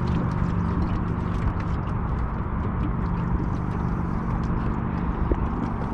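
Wind buffeting the microphone on an open boat over a steady low hum, with scattered light clicks and knocks from gear being handled.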